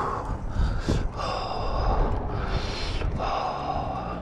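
A cyclist breathing hard while pedalling, a run of loud breaths each half a second to a second long, over a low steady rumble.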